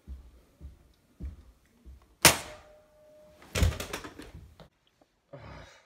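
Soft footsteps on carpeted stairs, about one every half second. Then a sharp, loud crack with a brief ringing after it, followed a second later by a rapid flurry of thumps and knocks as a body hits the stairs.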